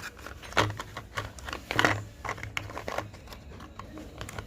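Irregular short clicks and scrapes from hands working with a packet of two-part adhesive and putty, mixing it and pressing it onto a crack in a plastic cooler body. The loudest scrape is about two seconds in.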